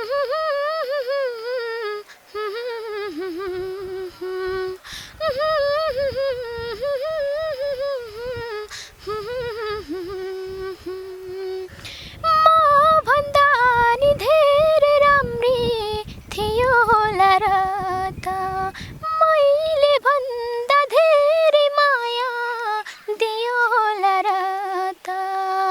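A woman singing a Nepali modern song unaccompanied, in long ornamented phrases with a wavering pitch and short pauses for breath between them.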